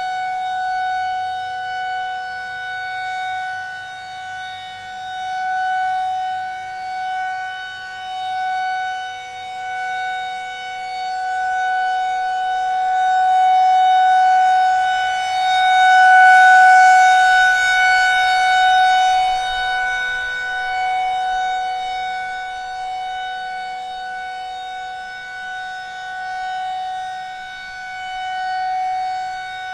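Federal Signal 2001-SRNB rotating electromechanical tornado siren sounding its full alert as a steady, single-pitch tone at full speed. Its loudness swells and fades as the horn turns, loudest a little past halfway through.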